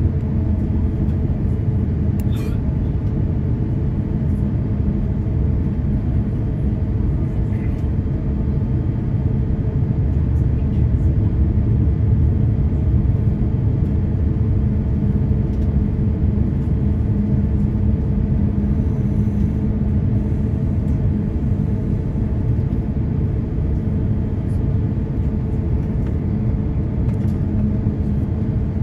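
Steady low rumble with a constant hum, heard inside the cabin of a British Airways Airbus A350-1000 taxiing on the ground. Its Rolls-Royce Trent XWB engines are running at low taxi power.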